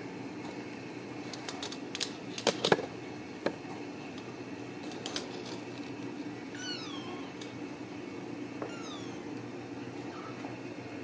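Ragdoll kittens meowing: short, high-pitched meows that slide down in pitch, twice in the second half with a fainter one near the end. A few sharp clicks and knocks come a couple of seconds in and are the loudest sounds.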